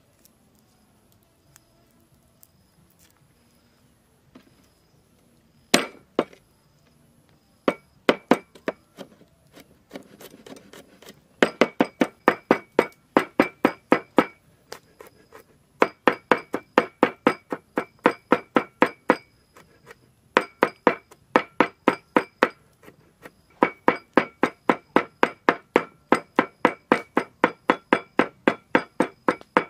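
A meat cleaver chops garlic on a wooden board: rapid knocks, about four a second, in runs broken by short pauses, each with a slight metallic ring. It is quiet for the first six seconds or so before the chopping starts.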